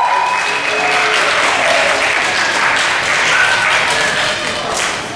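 Audience applauding, steady clapping that eases a little near the end.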